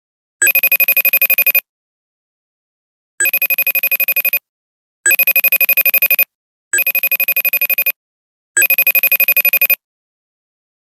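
Electronic phone ringtone: five bursts of a rapid, bell-like trill of about a dozen pulses a second, each burst about a second long, separated by short silent gaps of uneven length.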